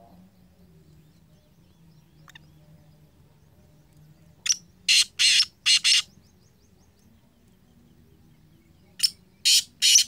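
Caged male black francolin calling. Two loud bouts of short, harsh, grating notes: a run of about four notes some four and a half seconds in, and another starting about nine seconds in.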